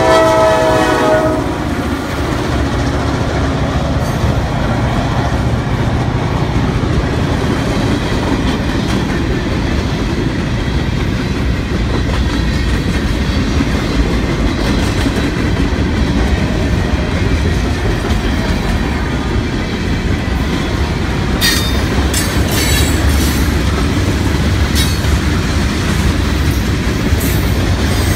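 Mississippi Export diesel freight train passing close by. The locomotive horn is cut off about a second in, then the locomotives rumble past and freight cars roll by with wheels clattering over the rail joints. About three-quarters of the way through, sharp metallic squeaks and clicks from the wheels join in.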